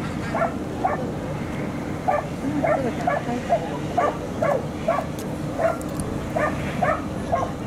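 A dog yapping in short, high yips, about two or three a second in irregular runs.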